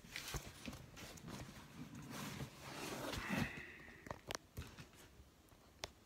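Handling noise as a camera is moved and repositioned: scattered rustles and knocks, with a sharp click about four seconds in and another near the end.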